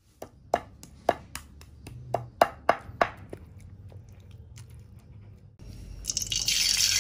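About ten sharp, plinking taps in the first three and a half seconds. Then, about six seconds in, a loud steady sizzle begins as ground chilli, shallot and tomato paste is tipped from a bowl into hot oil in a wok.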